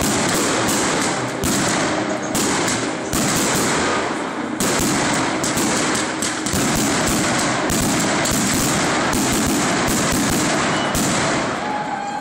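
Fireworks going off: a steady rushing noise with irregular sharp bangs and pops, about one or two a second, thinning out near the end.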